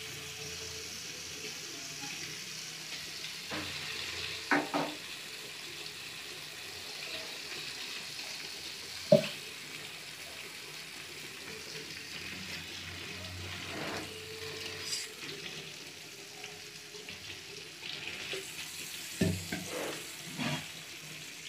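Masala-coated neiparai fish steaks shallow-frying in oil on a flat griddle (tawa): a steady sizzling hiss, with a few short sharp knocks scattered through, the loudest about nine seconds in.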